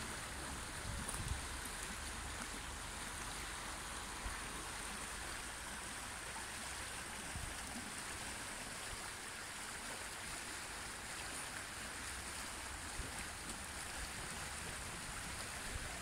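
Shallow river water flowing over rocks: a steady rushing, with a few brief low thumps.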